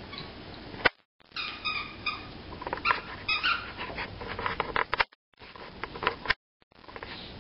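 Corgi chewing and worrying a plush giraffe toy, giving short high whimpers between clicks of its teeth on the toy. The sound drops out briefly three times.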